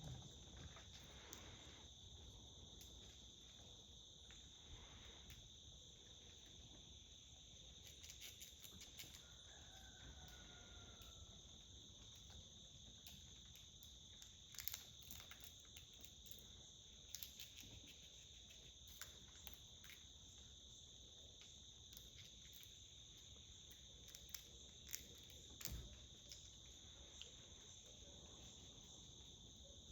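Faint, steady chorus of insects, a continuous high-pitched trill, with scattered faint clicks and ticks.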